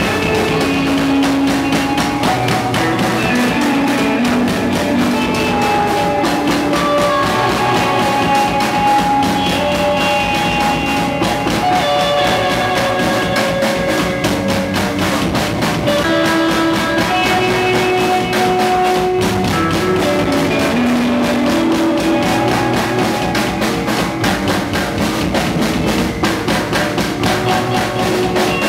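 Rock band playing live: an electric guitar plays held melodic notes over a full drum kit with kick drum and cymbals.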